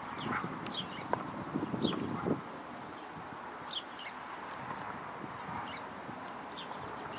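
Wire fox terrier gnawing on a bone, the crunching and cracking loudest in the first two seconds or so, then quieter. Small birds chirp repeatedly in the background.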